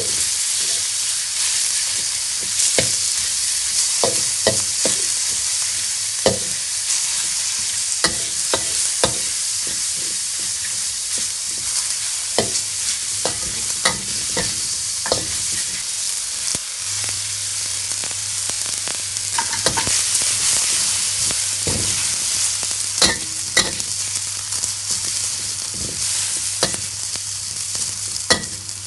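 Minced pork and garlic sizzling in a hot wok as a metal spatula stirs them, with frequent sharp scrapes and clacks of the spatula against the pan over a steady hiss of frying.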